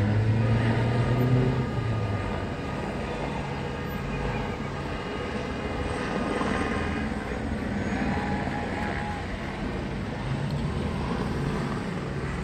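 Street noise of car engines, one revving up hard early on, over a steady drone from a low-flying helicopter.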